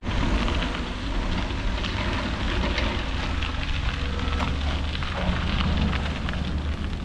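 Mountain bike tyres rolling over a loose dirt-and-gravel road: a steady crunching hiss with many small pops of grit and stones. Wind rumbles on the camera microphone.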